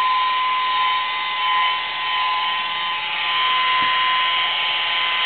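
Small electric polisher spinning a foam pad against car paint, running steadily with a constant high-pitched motor whine.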